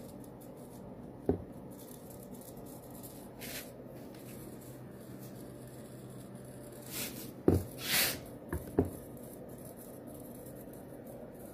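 Quiet room tone with a low steady hum, broken by a few sharp clicks and short hissing swishes, most of them in the second half.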